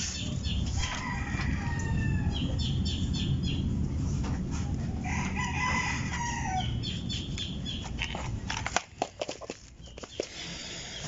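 A rooster crowing, twice, over a steady low hum. The hum cuts off suddenly about three quarters of the way through, followed by a few sharp clicks.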